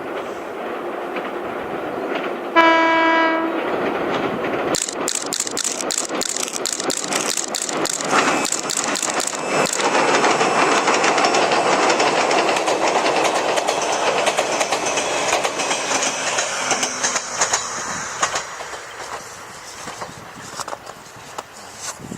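Toyama Chiho Railway 16010 series electric train sounding one short horn note as it approaches, then crossing a railway bridge: rapid clickety-clack of wheels over rail joints and a rumble that builds to a peak and fades away as the train passes.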